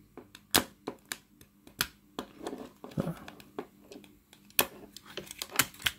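Irregular sharp plastic clicks and taps from fingers working a Black Diamond Storm 400 headtorch's battery compartment, its battery lever and the batteries, with the strongest clicks about half a second in and near the end.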